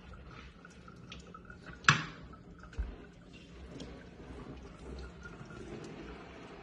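Water splashing and dripping in a stainless-steel kitchen sink as a young chimpanzee moves about under the tap, with scattered small clicks. A sharp knock about two seconds in and a smaller one a second later.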